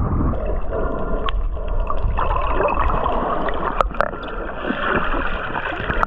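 Water sloshing and gurgling, heard muffled, with a few sharp clicks.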